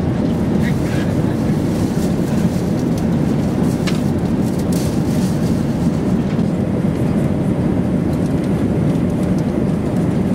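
Steady cabin noise of an Airbus A380 in flight, a low even rush of air and engines, with a few faint clicks.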